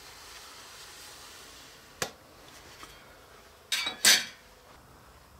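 Small hand tools being handled on a workbench: a single sharp click about two seconds in, then two short clattering sounds close together a little later.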